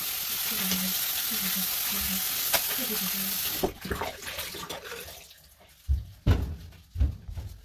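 Water running hard from a tap, a steady hiss that is shut off abruptly about three and a half seconds in, followed by a few dull knocks.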